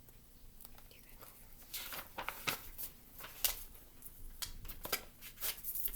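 Paper rustling and light handling clicks of a picture book's pages being turned, a string of short crinkly rustles starting about two seconds in.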